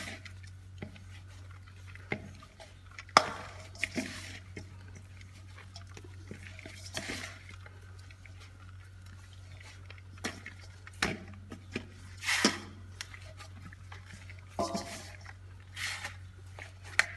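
Hands kneading bread dough in a stainless-steel bowl: irregular squelches, slaps and scrapes, with the metal bowl clinking now and then and one sharp knock about three seconds in.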